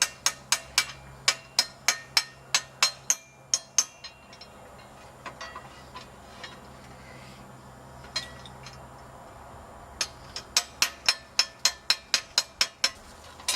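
Rapid metallic taps of a small hammer knocking out the retaining pin of a dog water fountain's valve, about four taps a second. The tapping runs for about four seconds, stops for several seconds, then starts again for about three seconds near the end.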